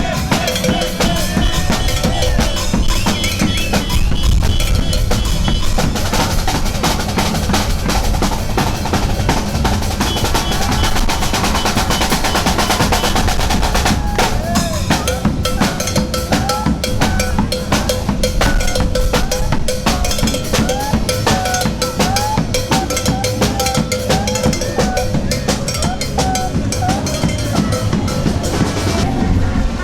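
Drums and percussion playing a fast, dense, steady rhythm, with a few short pitched notes over it.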